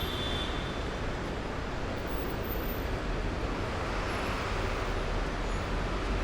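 City street traffic: a steady din of engines and tyres over a deep low rumble that swells toward the end.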